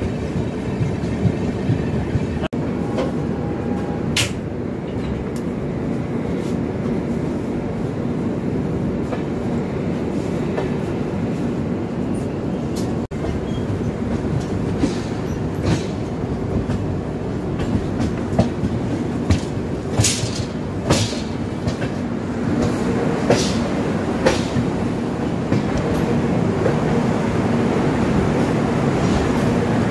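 Express train's coaches running on the rails as the train enters a station: a steady rumble with scattered sharp clacks from wheels passing over rail joints and points.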